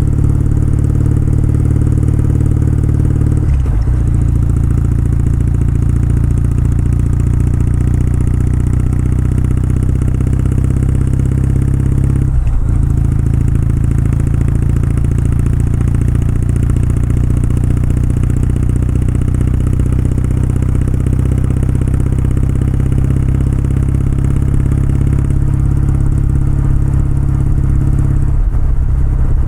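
Kawasaki W650's air-cooled parallel-twin engine and exhaust running steadily while riding, with three brief breaks in the note, about 3.5 s and 12.5 s in and near the end.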